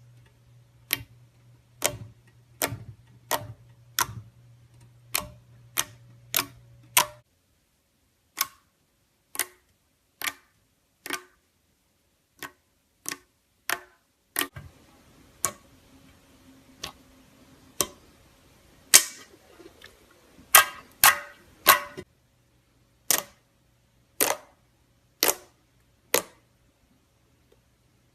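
Glossy slime being pressed and squished by hand, making a string of sharp clicking pops at an uneven pace of about one or two a second.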